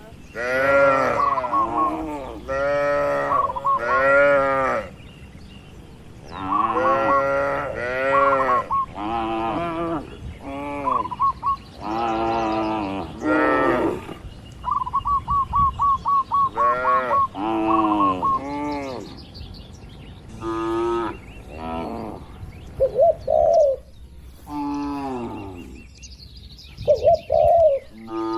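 Cattle mooing over and over in short calls that rise and fall in pitch, several in quick succession, with a bird's rapid chirping trill in some of the gaps.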